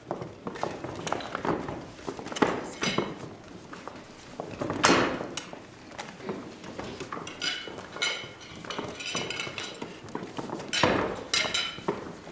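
A dense, irregular flurry of knocks and clatter on a table set with plates and glasses, starting suddenly. A few short, ringing squeaks come about two-thirds of the way through.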